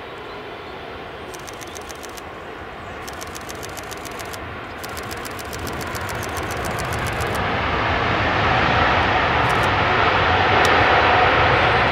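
Airbus A380 jet engines on the landing rollout: a rushing jet noise that swells steadily from about five seconds in and peaks near the end, as thrust builds after touchdown.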